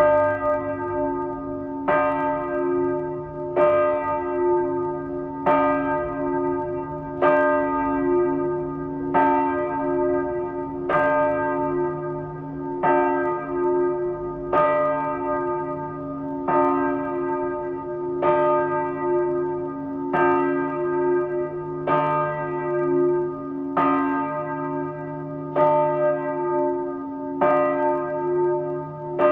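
Small church bell swinging and ringing, struck evenly about every two seconds, with the hum of each stroke carrying on under the next. The recording is slowed to half speed.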